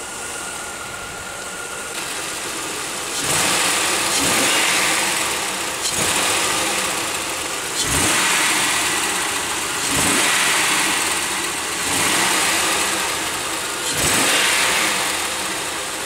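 2001 Pontiac Aztek's 3.4-litre V6 running with a misfire, revved in short blips about every two seconds from about three seconds in. The owner suspects a failing ignition coil rather than the spark plug.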